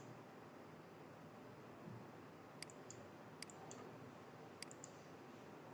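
Faint computer mouse clicks over quiet room tone: one click at the start, then three pairs of quick clicks a little past halfway.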